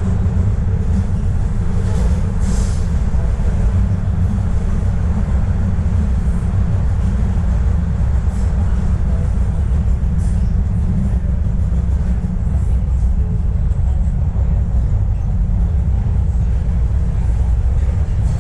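Subway train running at speed, a steady loud rumble of wheels on rail and motors, with a brief high squeal about two seconds in.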